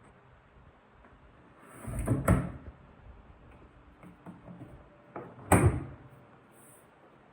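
Electrolux PerfectCare 600 washing machine handled by hand, a part of it opened and shut: two sharp knocks about three seconds apart, the first following a brief rising rush of noise, with a few small clicks between.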